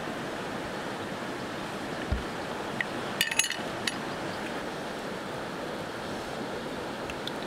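Steady rush of flowing river water, with a short cluster of sharp clicks about three seconds in.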